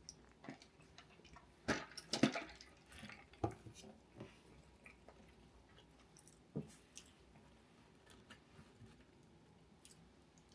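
Quiet eating sounds: chewing with scattered small clicks and taps of utensils or packaging, the loudest cluster about two seconds in.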